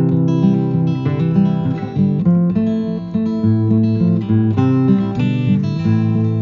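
Background music: acoustic guitar being plucked and strummed.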